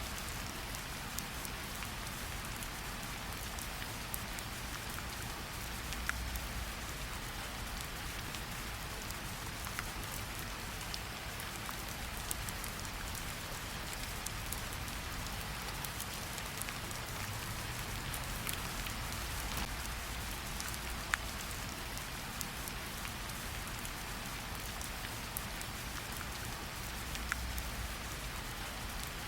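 Steady rain falling on a surface: an even hiss with scattered sharper drop ticks and a low rumble underneath.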